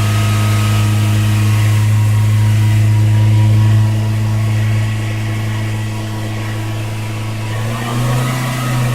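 Toyota Corolla four-cylinder engine held steadily at about 3000 rpm, its pitch rising a little near the end. It runs evenly, and the scanner counts no misfires at this speed.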